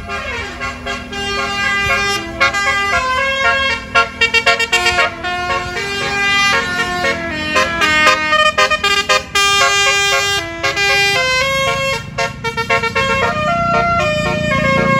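A tour bus's basuri 'telolet' musical air horn playing a tune of changing notes, opening with a falling slide and including a run of short quick blasts about four seconds in. A low engine and traffic rumble runs underneath and swells near the end.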